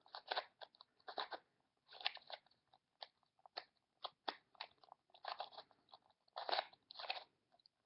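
Plastic Rubik's Cube being twisted by hand: an irregular run of quick clicking, rasping turns with short pauses between them.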